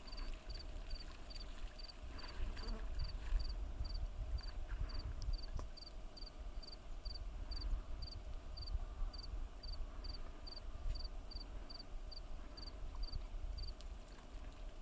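An insect chirping steadily, about three short, high chirps a second at one even pitch, over a low rumble.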